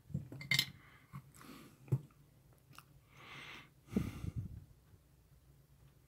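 Scattered light clicks and taps of hands handling soldering tools and the PCB holder on a workbench. A short soft hiss comes a little past three seconds in, then a small cluster of knocks about four seconds in as a hand grips the board holder's clamp.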